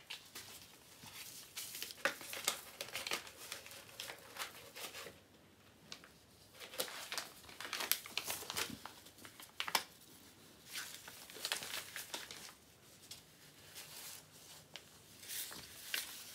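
Paper envelope crinkling and rustling in irregular bursts with short pauses as a cat clutches, paws and rolls on it.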